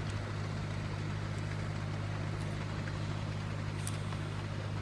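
A steady low mechanical hum, like an engine running at a constant speed, holding unchanged throughout.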